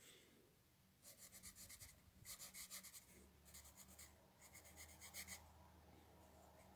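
Pen writing a word on paper: faint scratching in a run of short strokes, starting about a second in and stopping about five seconds in.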